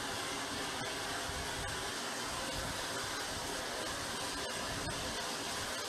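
Steady rushing machine noise with a faint high whine and a few faint clicks.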